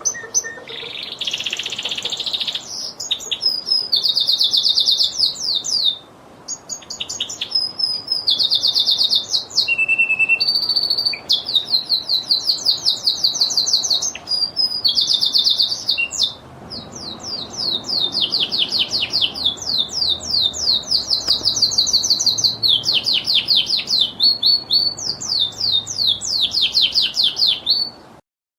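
Lizard canary singing a long, continuous song of fast trills and rapid runs of repeated high notes, with brief breaks, cutting off near the end.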